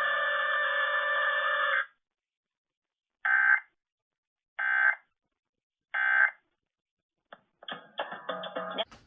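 Three short electronic data bursts about 1.3 seconds apart: the Emergency Alert System End of Message (SAME) tones that close a required weekly test. Before them, a steady music bed cuts off about two seconds in. Near the end a brief stretch of radio station audio comes back.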